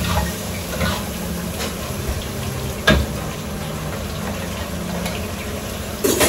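Shredded chicken in spice paste simmering and sizzling in a frying pan on a gas burner as its water cooks off, under a steady low hum. A spatula stirs the pan at first, and a sharp knock comes about three seconds in, with another near the end.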